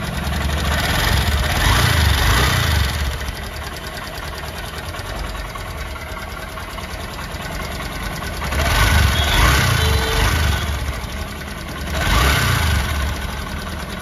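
Honda SP125's single-cylinder air-cooled engine idling with a tick-tick noise, its revs rising three times, briefly: about a second in, near nine seconds and near twelve seconds. The mechanic suspects a loose timing chain; he traces the ticking to excessive tappet clearance.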